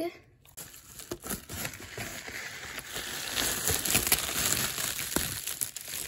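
Holographic plastic bubble mailer and bubble wrap crinkling and crackling as a hand rummages inside to pull out an item. It starts about half a second in and gets louder.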